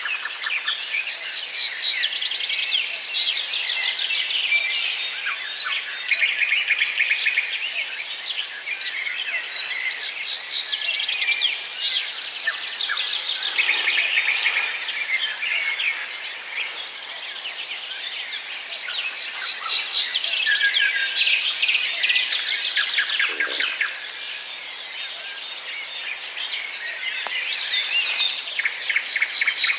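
A flock of small birds chirping and twittering at once, many short calls overlapping without pause.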